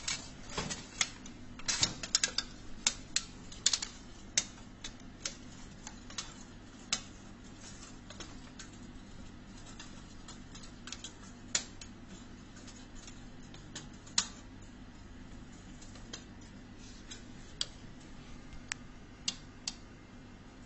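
Irregular sharp clicks and taps, many in the first five seconds and then one every second or two, from a metal tape measure being worked inside a vending machine and knocking against its parts.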